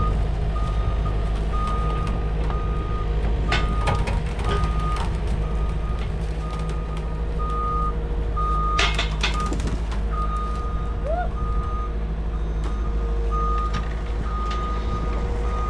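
Skid steer's backup alarm beeping about once a second over its engine running steadily, with a few sharp metallic clanks, the loudest about nine seconds in.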